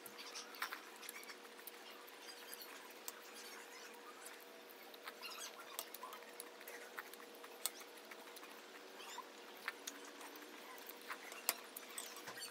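Spoon clicking against a ceramic cereal bowl and the crunching and chewing of Cinnamon Toast Crunch cereal, in scattered small clicks and crackles, over a faint steady hum.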